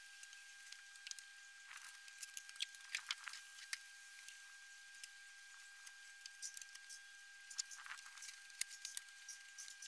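Faint scattered clicks and scratches of a brush working wood preservative onto timber deck joists, over a faint steady high whine.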